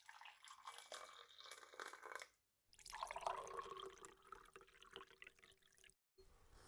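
Faint sound of water with many fine crackles, in two stretches broken by a short gap about two and a half seconds in, stopping about six seconds in.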